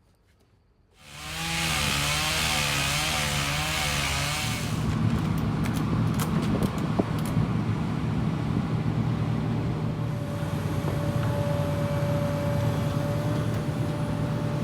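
A small gasoline engine starts up abruptly about a second in, its pitch wavering for a few seconds before it settles into a steady run. A steady higher whine joins about ten seconds in.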